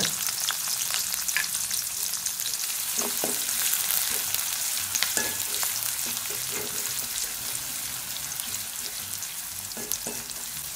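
Sliced red onions and garlic sizzling in hot coconut oil in a metal pan as they are tempered. A spoon stirs them, scraping and clicking against the pan a few times. The sizzle eases a little toward the end.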